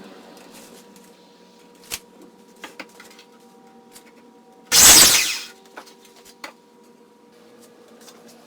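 Scattered clicks and knocks of hand work on wood, then one loud burst of power-tool noise lasting just under a second about halfway through, dying away as it stops.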